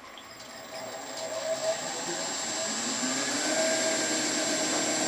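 Wood lathe motor running up to speed and then running steadily, spinning a wooden tool handle onto a 3/16-inch drill bit held in the tailstock chuck as the bit bores a pilot hole into the handle's end. The sound grows louder over the first few seconds, then holds steady with a high whine.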